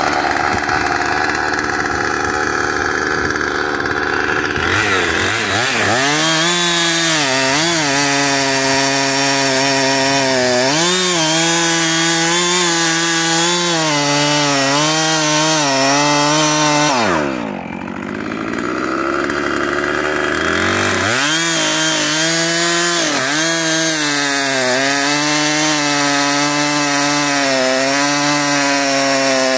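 Husqvarna two-stroke chainsaw cutting into oak at full throttle, its engine note sagging and wavering as the chain bites. A little past halfway the note drops away briefly, then revs back up and the cutting carries on.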